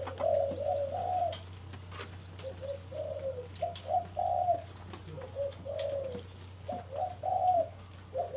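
Caged spotted doves cooing, short coo phrases following one another with hardly a break, over a steady low hum.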